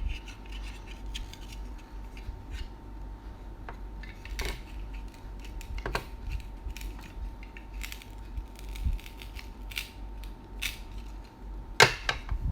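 Small plastic toy food pieces clicking and tapping as they are handled and picked out of a set, with irregular light knocks and a few sharper clicks.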